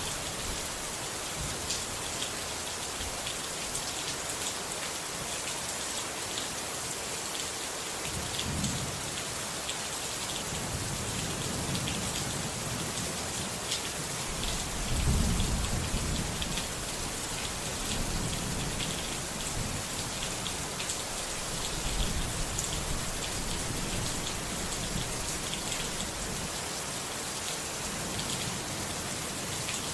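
Steady rain falling, with fine drop patter, as thunder rumbles low several times, loudest about halfway through.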